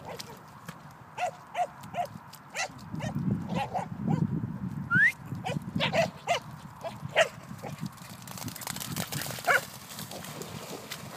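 Cocker spaniels giving short, repeated yips while running over waterlogged grass, then splashing through a shallow puddle near the end.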